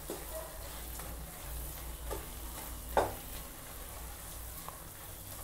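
Wooden spatula stirring and scraping thick, sticky dates halwa in a non-stick pan, with faint sizzling from the cooking mass. A few short scrapes and taps of the spatula stand out, the loudest about three seconds in.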